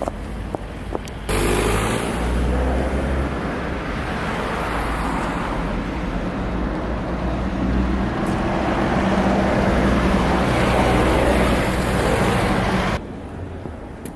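Road traffic: cars driving past on the street, a steady rush of tyres and engines. It starts abruptly about a second in and cuts off sharply near the end.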